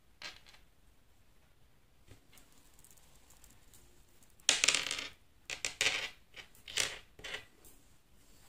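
Small metal earring hoop and thread handled during tatting, giving a quick cluster of clinks and rattles from about halfway through to near the end.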